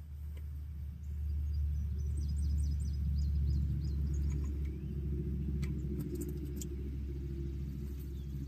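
Used engine oil pouring from the Dodge Caravan's drain-plug hole into a drain pan, a steady low rumbling splash that swells about a second in. Faint bird chirps sound above it.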